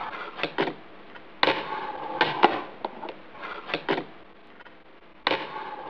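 Fingerboard clacking on a tabletop and small obstacles as tricks are popped and landed: a series of sharp clacks, with softer rolling noise from the small wheels between them.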